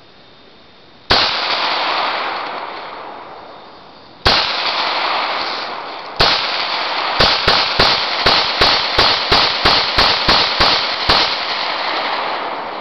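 Gunshots fired at an old printer: three single shots a couple of seconds apart, each trailing off slowly, then a rapid string of about a dozen shots at roughly three a second.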